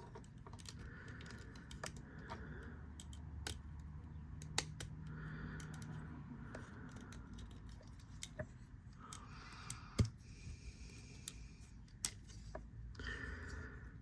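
Plastic Transformers action figure being transformed by hand: scattered sharp clicks of joints and parts snapping into place, with plastic rubbing and scraping in between. The loudest click comes about ten seconds in.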